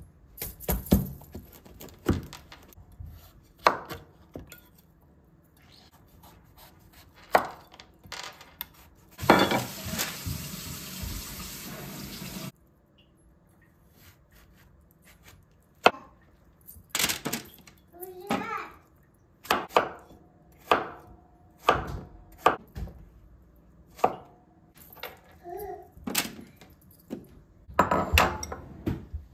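A chef's knife cutting through raw pumpkin and knocking on a wooden cutting board in a string of separate chops. About nine seconds in, a steady hiss lasts about three seconds, then the chopping resumes.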